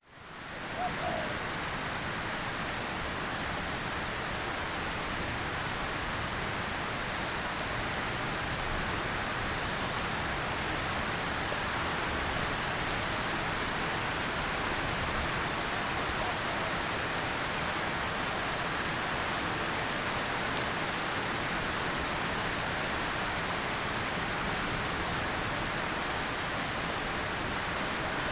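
Drizzle falling: a steady rain hiss with fine scattered drop ticks, fading in at the very start and then holding even.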